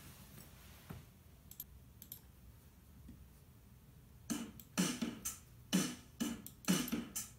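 A few mouse clicks. About four seconds in, music with a steady beat starts playing from the laptop's JBL speakers, whose torn surrounds have been repaired with silicone sealant: a playback test of the mended speakers.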